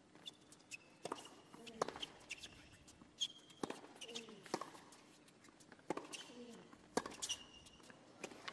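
Tennis serve and rally on a hard court: sharp racquet strikes on the ball about once a second, with short high squeaks of shoes on the court and brief player grunts between the hits.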